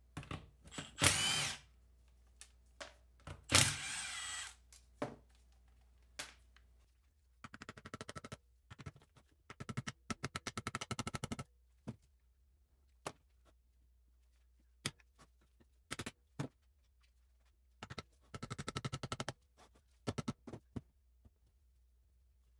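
A cordless impact tool spinning in two short loud bursts near the start, run on the cylinder head's studs. Later come several stretches of rapid rattling clicks and scattered single metal clicks and taps as parts are worked loose.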